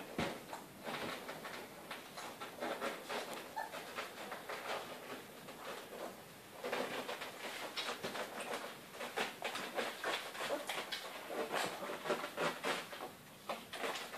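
Great Dane puppies nursing from their mother, a busy, irregular run of small squeaks, grunts and suckling smacks.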